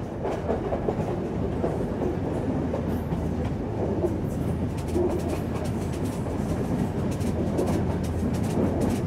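Passenger train running along the track, a steady low rumble of wheels on rail with faint clicks, heard from aboard the carriage.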